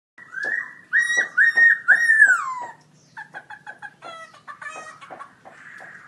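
Black-throated laughingthrush singing loudly: a few clear whistles, the last one sliding down in pitch, then about three seconds in a quicker string of short, quieter notes.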